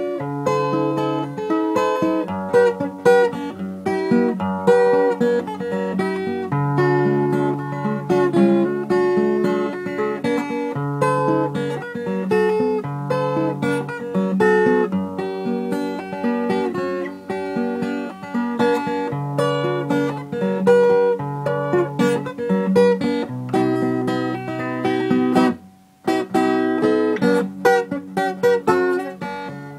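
Solo acoustic guitar playing a picked and strummed melody over held bass notes, with a brief pause near the end.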